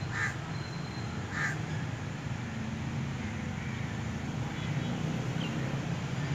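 Two short animal calls, the first just after the start and the second about a second later, over a steady low hum.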